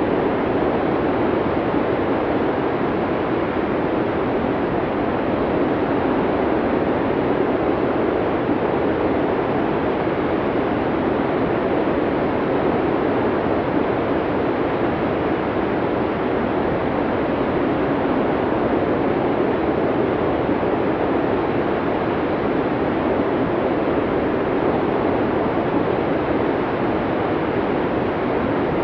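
Snowstorm wind blowing as a steady, unbroken rush, with no gusts, breaks or other sounds.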